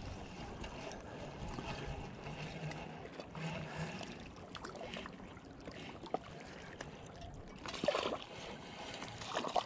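Small waves lapping at a rocky lake bank while a spinning reel is cranked in, with a short splash at the surface about eight seconds in.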